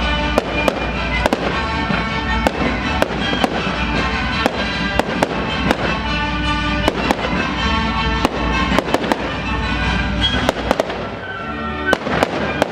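Fireworks going off in a rapid string of sharp bangs, several a second, with music playing underneath.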